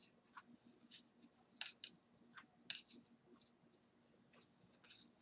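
Faint, irregular clicks and taps of large wooden knitting needles (US size 19) knocking together while a row of purl stitches is worked in super bulky wool yarn.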